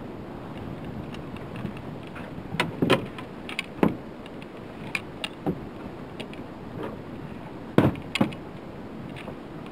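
Knocks, clunks and rattles of gear being handled in a small open boat: a scattering of sharp knocks, loudest about three seconds in and again near eight seconds, over a steady background rush.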